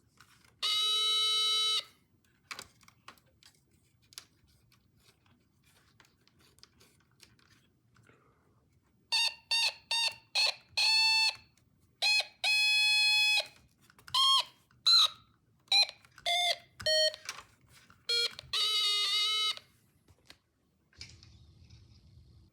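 Electronic tones from a Snap Circuits sound circuit's speaker. There is one steady beep about a second long near the start. From about 9 s a run of short beeps and chirps follows at changing pitches, some sliding, ending with a longer warbling tone.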